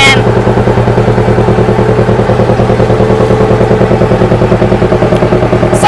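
A boat's engine running steadily under way, a low drone with a regular pulsing.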